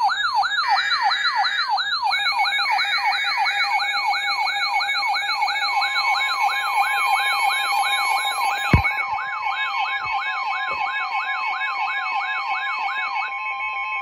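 Several weather alert radios sounding their alarms together for an incoming tornado warning: a siren-like tone sweeping down and back up more than twice a second, over steady and pulsing electronic beeps. A steady tone joins about six seconds in, a sharp click comes near the middle, and the sweeping alarm stops near the end.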